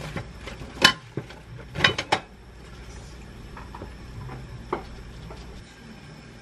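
Utensils and dishes clinking against ceramic as salad toppings are placed on a plate: a few sharp clinks, the loudest about a second in and a close pair around two seconds, then a fainter one near five seconds.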